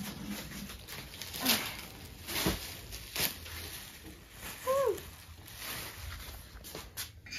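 Plastic wrapping crinkling and rustling as a wire fryer basket is unwrapped from its cardboard box, with several sharper crackles. A brief high whine, rising then falling, about two-thirds of the way through.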